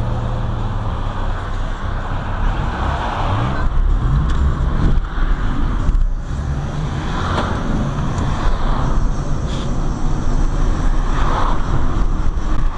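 Road noise of a moving car heard from inside the cabin: a steady low rumble of engine and tyres, swelling a couple of times as traffic goes by.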